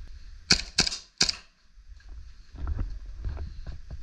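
Airsoft gun firing three sharp shots in quick succession in the first second and a half.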